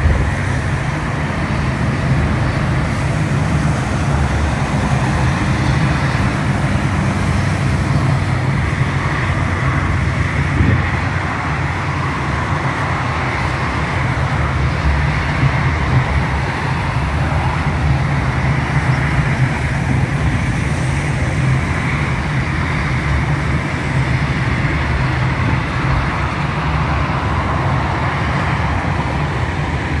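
Steady low rumble of road traffic and running engines, without any distinct passing vehicle.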